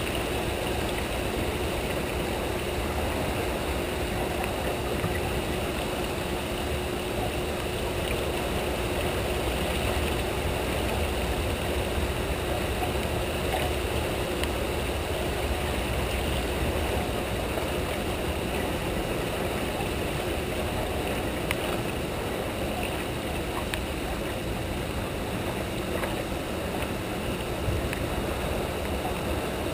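Steady rush of turbulent tailwater churning below a hydroelectric dam's outflow, with a faint steady hum underneath and a few light ticks.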